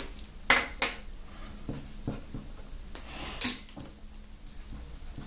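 Marker pen on paper: a couple of sharp clicks about half a second in, a few fainter ticks, then a short scratch of writing around three seconds in as a figure is struck through and a new one written.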